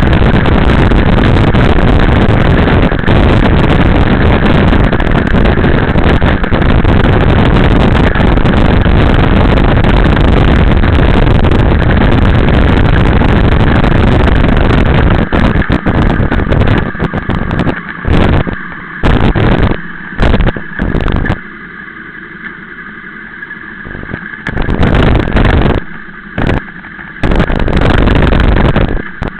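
Heavy, steady rush of wind and engine noise from a motorcycle on the move. About halfway through it breaks up into short loud gusts with quieter gaps between them.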